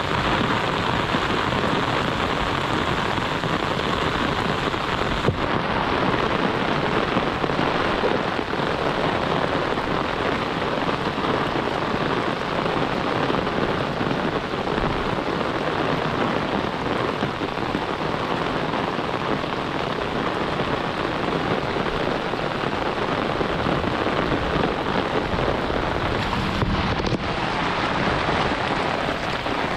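Heavy monsoon rain falling steadily, a dense, even hiss of drops striking the ground and nearby surfaces.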